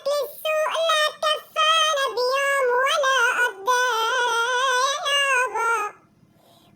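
A very high-pitched, artificially pitched-up voice singing a melody in held, gliding notes. It breaks off shortly before the end into near silence.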